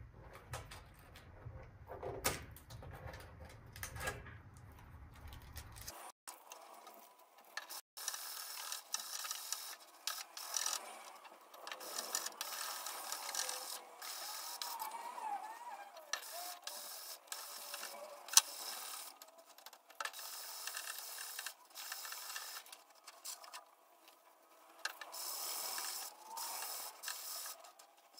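Hand sanding the clear coat of a carbon-fibre fender with an abrasive sanding sponge and scuff pad: irregular scratchy rubbing strokes.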